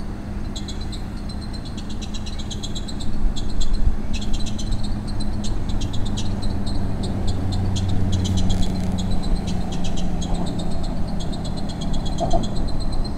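A chorus of high, rapid trills that repeat in phrases of a second or two, over a steady low hum.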